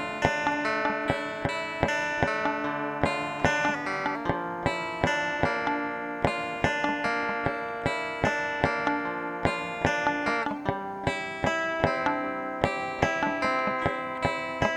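Instrumental background music of plucked strings, a guitar picking notes in a steady rhythm.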